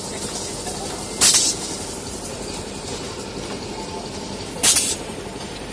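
Roti-making machine running with a steady noise, broken twice by short, sharp hisses of compressed air from its pneumatic lines, about three and a half seconds apart.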